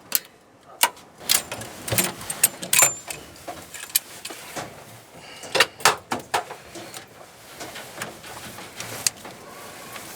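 Irregular clicks, knocks and rattles, as of things being handled, over a faint background hiss.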